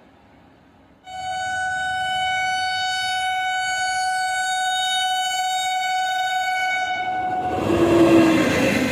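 Indian Railways electric locomotive sounding one long, steady horn blast about a second in as the express approaches. Near the end the horn stops and the rush and rumble of the locomotive and coaches passing close at speed takes over, loudest as it goes by.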